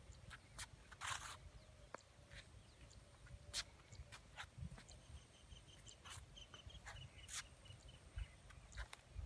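Footsteps of a person and a small leashed dog on an asphalt path: faint, scattered light ticks and scuffs, over a low rumble. A faint run of short high chirps comes from about five to seven seconds in.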